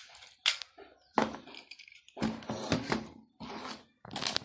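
Clicks and short rattles of hard plastic as a mechanical dial timer and its small parts are handled and set down on a table, with a denser clatter about two seconds in.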